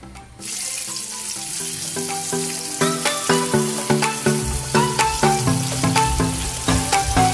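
Breaded chicken pieces deep-frying in a pan of hot oil, a steady sizzle that starts just after the opening. Background music with a regular beat comes in over it.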